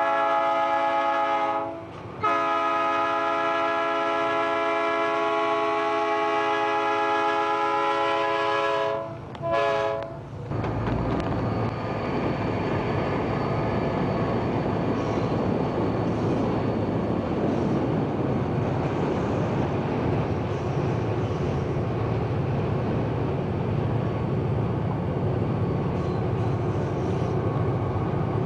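Diesel locomotive's air horn sounding a long multi-note blast, broken briefly about two seconds in, with a short last blast around nine seconds. After that, the steady rumble of the locomotive running past with its wheels on the rails.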